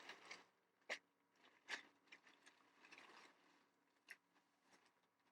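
Near silence, broken by a few faint clicks and rustles: the clearest about a second in, just under two seconds in, and about four seconds in.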